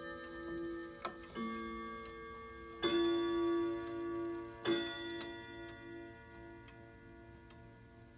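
Grandfather clock chiming: the last notes of the chime melody, then two louder hour strikes about two seconds apart, each ringing on and fading, with the pendulum ticking underneath. This is the clock striking 2 o'clock.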